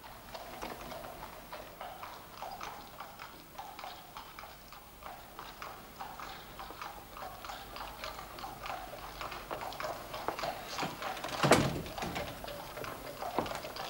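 Horse hooves clip-clopping on a hard street surface, a dense run of irregular clicks over a steady low rumble. A single louder thud comes about eleven and a half seconds in.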